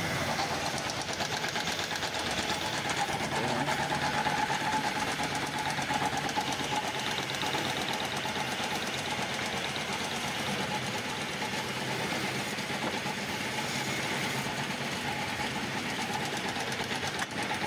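Woodworking lathe running steadily, with a dense, very rapid scraping over its steady hum.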